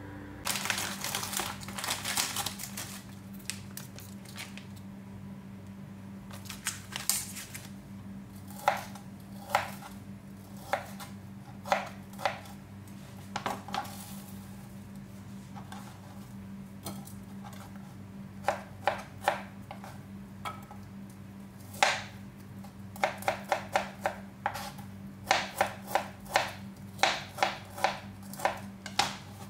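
Knife slicing lobster balls on a plastic cutting board: sharp knocks as the blade strikes the board, scattered at first, then in quick runs during the second half. A steady low hum sits underneath.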